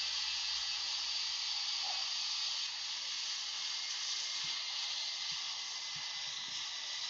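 Airbus A380 jet engines during landing: a steady, hissing jet noise with no rise or fall.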